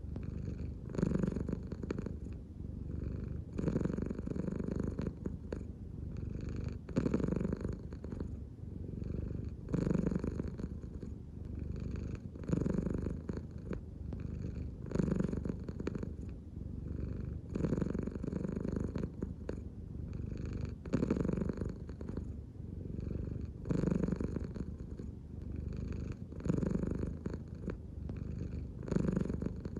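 American Shorthair cat purring close up. The purr runs continuously and swells and eases in a slow rhythm about every three seconds as the cat breathes in and out.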